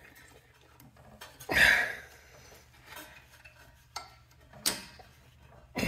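A few sharp metallic clicks and knocks from a spark plug boot being pushed back onto a newly fitted snowblower spark plug, the loudest about one and a half seconds in.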